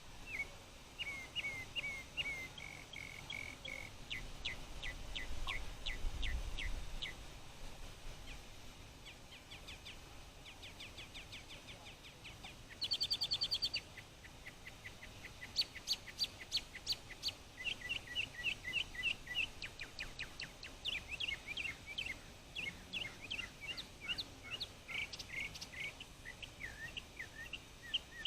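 A songbird singing a long, varied song of short chirps and whistled notes, each phrase repeated several times before it switches to a new one, with a harsh buzzy phrase about thirteen seconds in. It is the male's song advertising for a mate.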